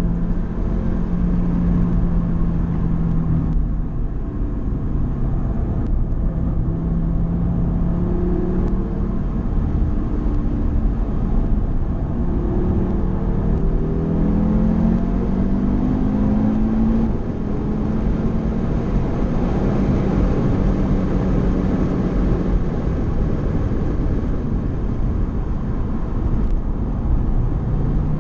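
Car engine running under load with tyre and road noise, heard from inside the cabin. The engine note holds steady, then climbs in several short rising steps through the middle, as the car pulls through the gears.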